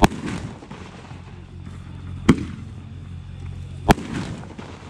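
Pyro Predator Death Valley 500-gram fireworks cake firing shots one at a time: three sharp bangs, about two seconds apart, each trailing off briefly.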